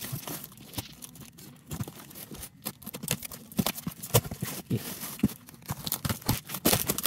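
Hands tearing and crinkling plastic stretch wrap and a black plastic bag off a cardboard box, in a string of irregular crackles and rips.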